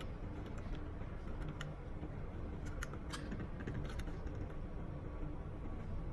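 Scattered small clicks and taps of electrical wires and a connector being handled while the neutral wires are joined, over a steady low hum.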